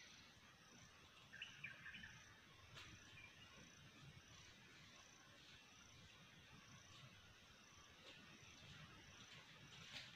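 Near silence with faint forest ambience. An insect gives a short high chirp about every 0.7 s, a bird gives a brief call about a second and a half in, and a few faint ticks sound like scratching or pecking in leaf litter.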